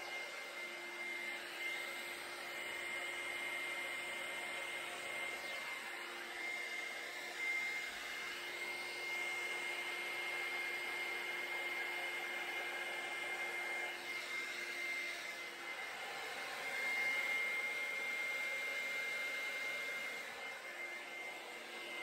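Handheld hair dryer running steadily, blowing wet acrylic pour paint across a canvas: rushing air with a constant high whine.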